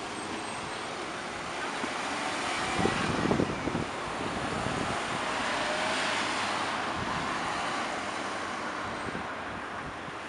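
Road traffic: cars passing at an intersection, with tyre and engine noise swelling to a peak about six seconds in as one goes by, then fading. A few low knocks stand out briefly about three seconds in.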